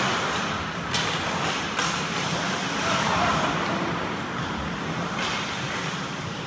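Ice hockey play heard from beside the goal: a steady scrape and hiss of skates on the ice with a few sharp clicks, about three in all.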